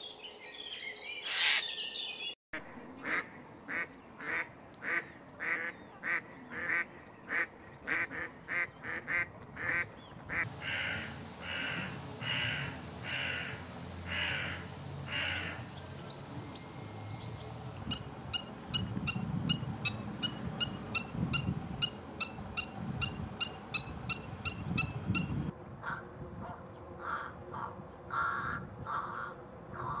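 A series of crow-family birds calling in turn. First comes a single harsh screech from a Eurasian jay. Then come runs of short, harsh, repeated calls, with a hooded crow cawing around the middle and an all-black crow cawing near the end.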